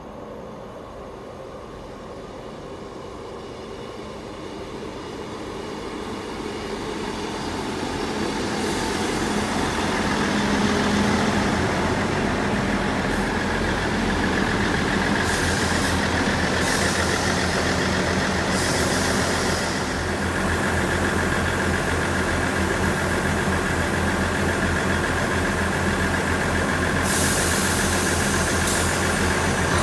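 East Midlands Railway Class 158 diesel multiple unit approaching and running alongside the platform. Its diesel engines make a deep, steady hum that grows louder over the first ten seconds or so, then holds. Bursts of hiss come about halfway through and again near the end.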